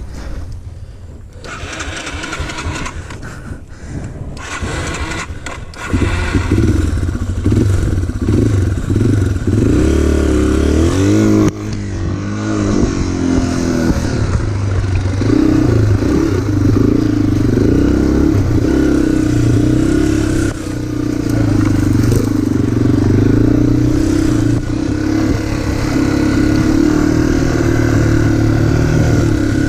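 Off-road motorcycle engine catching about six seconds in after a few seconds of rough noise and knocks, then revving up and down and running steadily under throttle.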